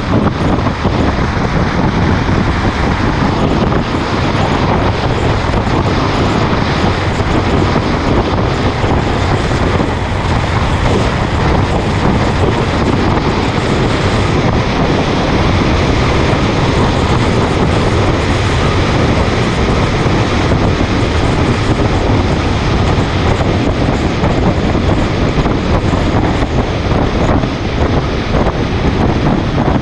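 Steady wind rush over the microphone of a motorcycle riding at highway speed, mixed with engine and tyre noise.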